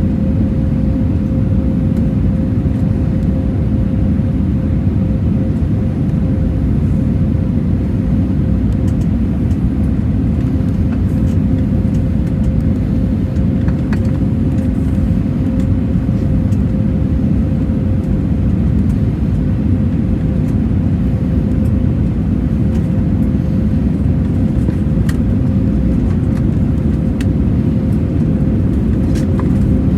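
Steady cabin rumble of an Airbus A320neo during landing: airflow and its CFM LEAP-1A engines, with a steady hum.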